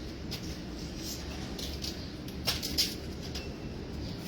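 A few light clicks and handling noises from an airsoft gas pistol magazine being handled as it is readied for a spray of silicone oil.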